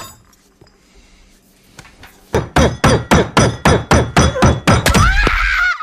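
A rapid, even series of about fifteen hard blows, some five a second, from a hand-held object being brought down on a person again and again. A high tone wavers up and down over the last few strikes.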